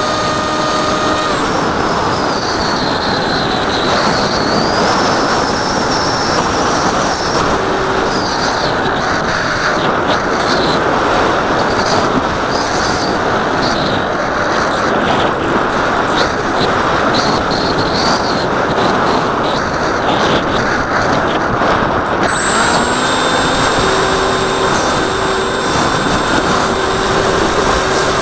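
Wind rushing over the camera on an RC foam plane in flight, with the whine of its electric motor and propeller on top, gliding down and back up in pitch early on. About 22 seconds in, the whine changes to several steadier, higher tones.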